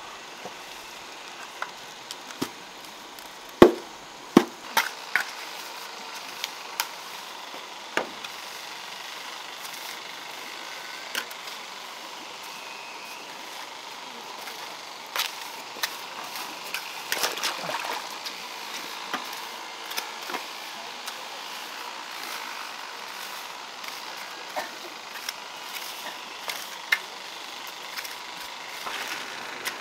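Masonry hand work on wet mortar: a metal basin of mortar turned over, then a trowel scraping and tapping along a concrete edge. Scattered sharp knocks, the two loudest about three and a half and four seconds in, with smaller ticks and scrapes later.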